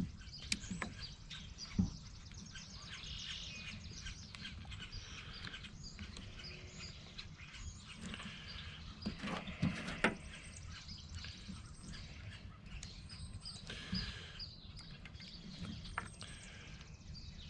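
A few light clicks and knocks from hand work on the chainsaw's carburetor and choke linkage, over faint bird chirps in the background.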